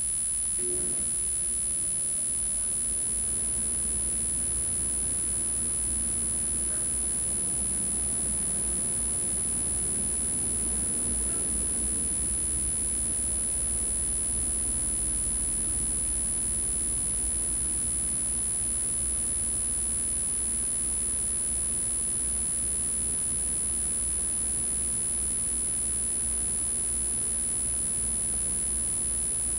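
Wind buffeting a small camera microphone as a steady low rumble, with a constant high-pitched electronic whine.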